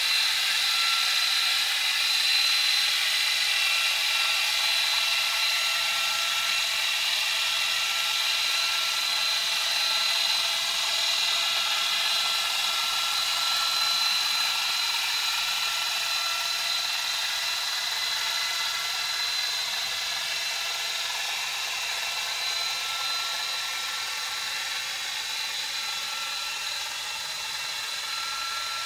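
A sailboat's engine and propeller heard underwater through a hydrophone: a steady mechanical whir carrying several constant high whining tones over a hiss. It slowly grows fainter.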